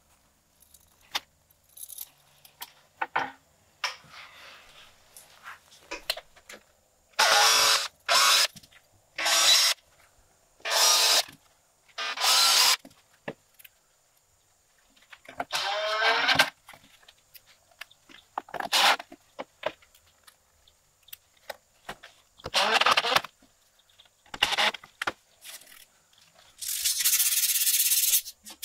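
Power drill running in repeated short bursts of about a second each, driving screws through rubber feet into the underside of a wooden cutting board, with small knocks and handling clicks between the bursts and one longer burst near the end.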